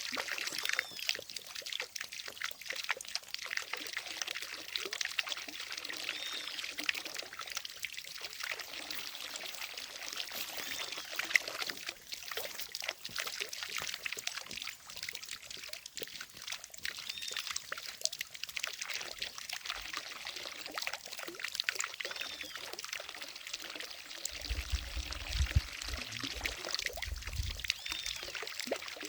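Fountain water falling and splashing steadily into a lake, a continuous pouring, trickling sound. A low rumble comes in for a few seconds near the end.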